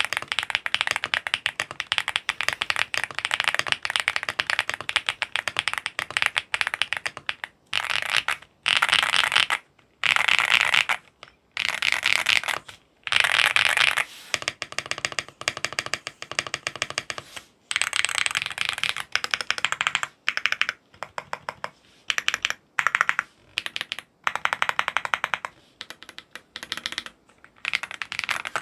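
Fast typing on a Leobog Hi75 aluminium gasket-mount mechanical keyboard with unlubed Akko V3 Cream Blue Pro linear switches: rapid runs of keystrokes broken by short pauses every few seconds.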